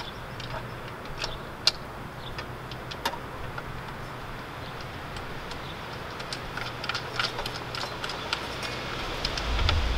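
Scattered light metallic clicks and ticks from a Milwaukee miter saw's blade and guard being handled as the flipped blade is refitted on its arbor, with the saw unplugged. A faint steady low hum runs underneath, and a low rumble builds near the end.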